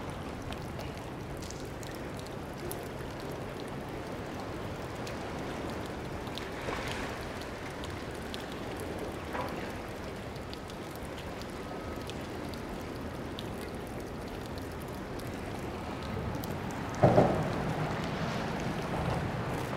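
Steady rushing noise of wind and moving water. A short, louder sound comes about seventeen seconds in.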